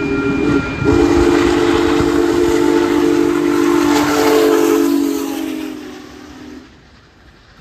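Union Pacific Big Boy 4014's steam whistle: a short blast, then a long blast of several notes sounding together, which fades and stops a second before the end. A rushing hiss runs under it.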